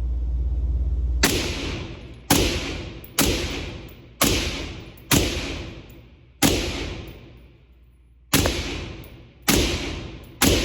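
Nine single, semi-automatic shots from an AR-15 chambered in 5.56, fired at an uneven pace about a second or two apart, each with a long echoing tail. A low steady rumble is heard for about the first second, before the first shot.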